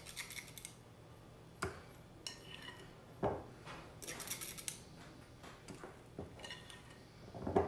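Metal spoon clinking and scraping against a glass mixing bowl and metal pancake ring molds as thick batter is spooned into the molds. There are several separate light clinks and knocks, with a short run of scraping about four seconds in.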